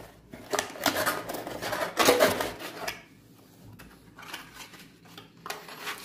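Cardboard packaging handled and pulled out of a box: a run of scrapes, rustles and knocks in the first three seconds, then quieter handling.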